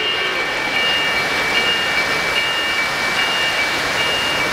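O-gauge three-rail model freight train rolling past on metal track, a steady rushing hiss of wheels on rail. Over it an electronic bell tone pulses on and off a little more than once a second.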